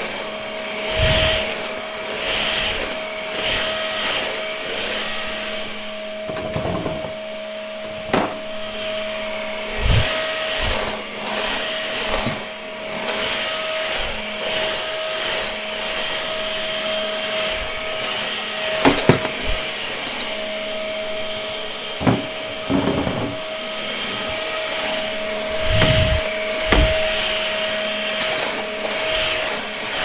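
lubluelu 008 cordless stick vacuum running with a steady whine while its floor head is pushed back and forth over a hard wood-look floor. A few sharp clicks and knocks come through now and then.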